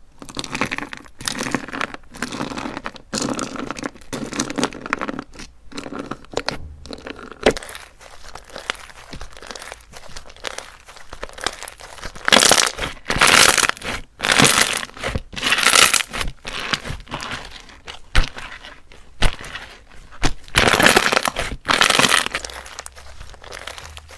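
Crunchy slime being squeezed and pressed by hand, crackling and crunching in repeated bursts about a second apart. The bursts grow louder and longer about halfway through.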